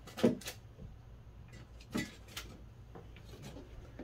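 A few short, soft knocks and rubbing sounds of objects being handled, the sharpest just after the start and about two seconds in.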